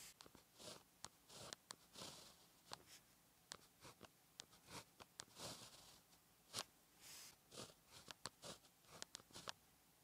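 Pen tip writing Chinese characters on paper: faint, short scratches of each stroke, with sharp ticks as the tip touches down and lifts, coming irregularly stroke after stroke.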